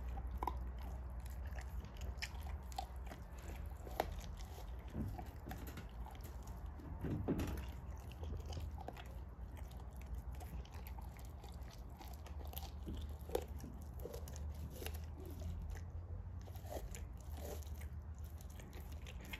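An American bulldog chewing and gnawing raw meat on the bone. Short wet crunches and clicks come irregularly, with a few louder bites about 4, 7 and 13 seconds in.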